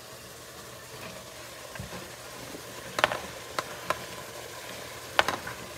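Cut okra pieces dropped by hand into a steaming pot, with a few sharp knocks and clatters about three seconds in and again near the end, the last the loudest. A steady sizzling hiss comes from the hot pot.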